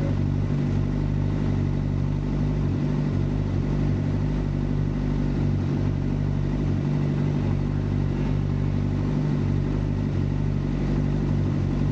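Suzuki GSX-R600's inline-four engine idling steadily while the motorcycle stands still.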